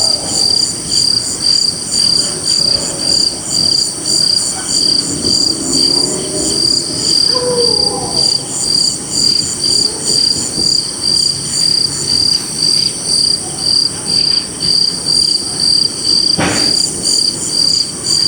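Crickets chirping in a steady rhythm, about two pulses a second, over a continuous high insect trill, with faint falling calls in the background. A single sharp click sounds near the end.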